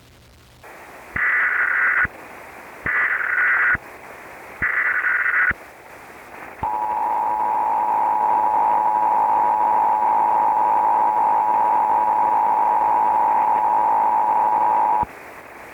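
Emergency Alert System tones over a steady bed of static. First come three short bursts of the SAME digital header data, then the two-tone attention signal holds steady for about eight seconds and cuts off abruptly near the end.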